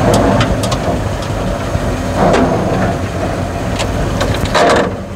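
1948 Ford truck's engine running as the truck moves slowly, heard from inside the cab, with clunks and rattles from the old truck and a brief harsher rasp near the end.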